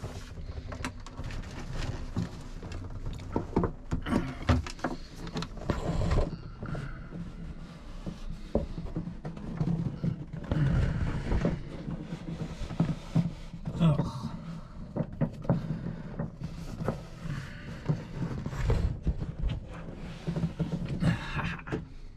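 Irregular knocks, scrapes and rustling from someone moving and handling things in a cramped fiberglass boat compartment, with a steady low hum underneath.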